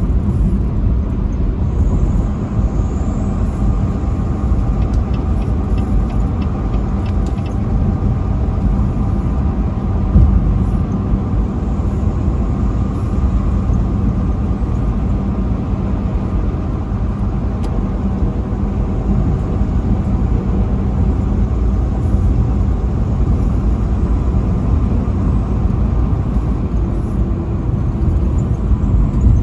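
Semi-truck driving at highway speed: a steady engine drone over continuous road rumble, with one brief thump about ten seconds in.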